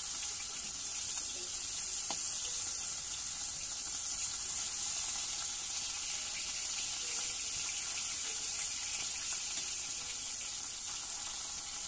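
Fish pieces shallow-frying in hot oil in a steel kadai: a steady high sizzle.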